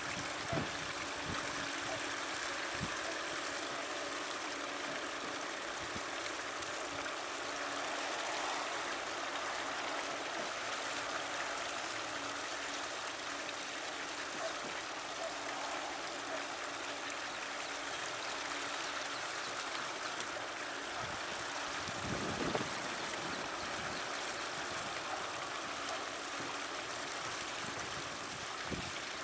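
Steady running water of a small stream, an even trickling rush.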